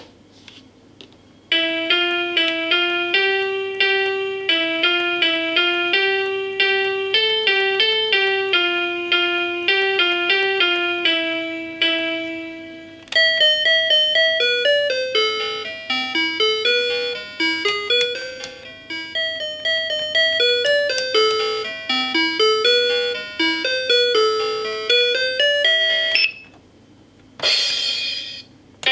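Toy electronic keyboard playing built-in demo tunes in bright electronic beeping tones. One melody plays for about eleven seconds, then a second tune starts and runs until shortly before the end. It is followed by a brief burst of noise as the buttons are pressed.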